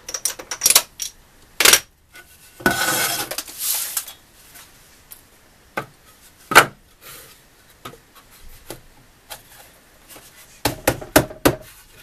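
Handling of tools and softwood timber on a wooden workbench: scattered sharp clicks and clinks, a scrape about three seconds in, one sharp knock near the middle, and a cluster of knocks near the end as the two pieces of a T-halving lap joint are set together to test the fit.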